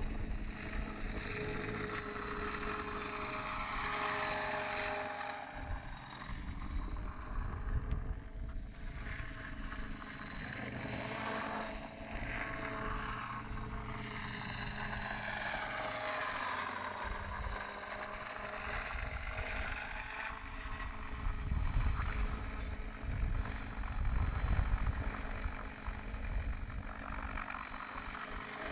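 60-class radio-controlled helicopter in flight, a steady whine of engine and rotors that sweeps up and down in pitch as it flies past and turns. Wind gusts buffet the microphone in the second half.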